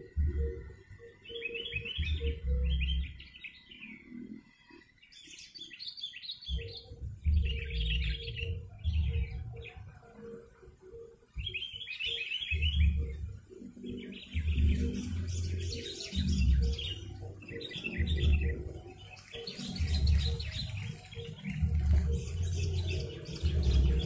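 Sooty-headed bulbul (kutilang) chirping in repeated short, bubbly bursts, with a low thumping about once a second underneath.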